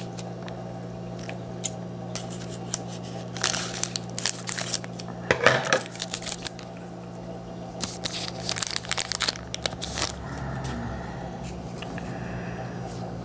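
A Leaf Certified Materials football card pack being torn open by hand, with short bursts of wrapper tearing and crinkling and the rustle of cards being handled.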